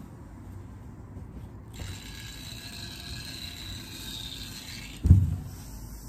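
Industrial steam iron hissing softly as it presses a shirt, then a single heavy thud about five seconds in as the iron is set down.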